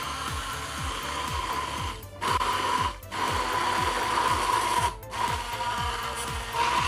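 Hand-held immersion blender running in a tall cup of oil, egg white and garlic, a steady high motor whine that cuts out briefly about two, three and five seconds in. The mixture is emulsifying into a thick garlic sauce.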